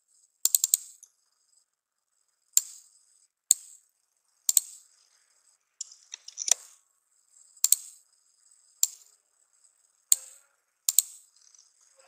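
Computer mouse and keyboard clicking: a quick run of three or four clicks about half a second in, then single sharp clicks about once a second.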